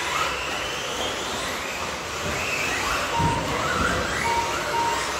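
Several electric RC buggies racing: a steady mix of motor whine that rises and falls in pitch with throttle, and tyre noise. Three short steady beeps sound, one about three seconds in and two near the end.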